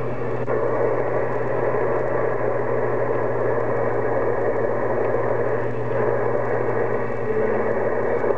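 CB radio receiver on the 27 MHz band with the squelch open, giving a steady hiss of static and band noise over a low hum while the operator waits for distant skip stations.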